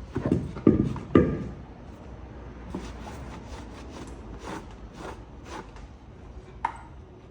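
A few sharp knocks in the first second and a half, then a string of lighter, irregular clicks and one last click near the end, from handling and spinning the freshly greased and reassembled geared hub motor.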